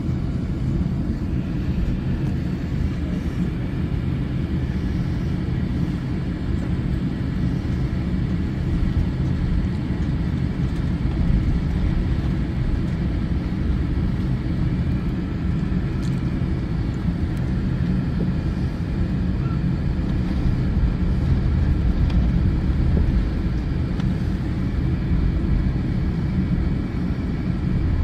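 Steady low rumble heard inside an airliner cabin while it taxis to the gate after landing: the jet engines at idle and the wheels rolling over the taxiway.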